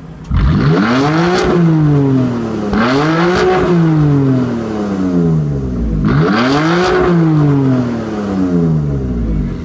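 BMW M4 Competition's 3.0-litre twin-turbo straight-six, breathing through the M Performance exhaust, revved from idle three times. Each rev climbs quickly and then falls back slowly toward idle.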